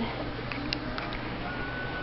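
A few faint clicks of plastic handling as the top is fitted back onto a canned air horn, over a steady low hum.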